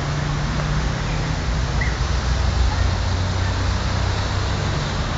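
Steady rushing of water on a flooded street, with a vehicle engine running low underneath.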